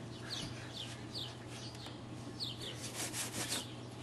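A cloth rubbing on a shop's glass door as it is wiped, with a quick run of strokes about three seconds in. Birds chirp with short falling notes.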